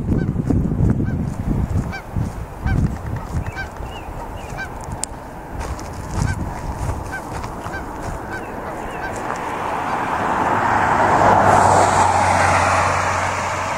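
Geese honking in a steady series of short calls, about two a second, over low bumps from the microphone being carried. Near the end a vehicle passes, its noise swelling and then fading.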